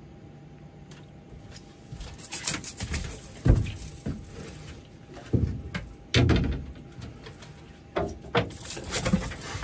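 Irregular knocks, thuds and clatter of fishing gear being handled on a boat deck, the loudest knocks about three and a half and six seconds in.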